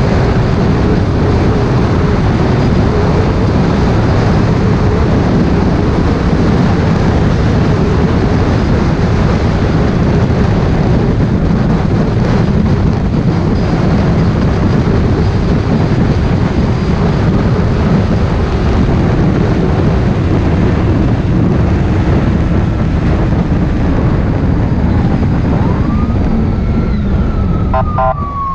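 Motorcycle riding at highway speed: a steady rush of wind over the microphone with the engine running underneath. In the last couple of seconds, as the bike slows, a siren starts wailing, its pitch rising and falling.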